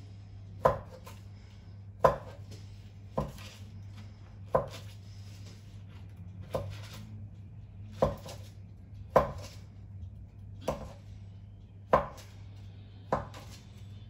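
Chef's knife cutting down through a rolled log of puff pastry for palmeritas, knocking on the surface beneath the baking paper. About ten sharp cuts, a little over a second apart.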